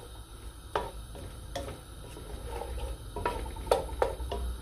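Wooden spoon stirring diced onions in oil in a metal pot, scraping and knocking against the pot's side and bottom several times, the loudest clacks a little after three and a half seconds in.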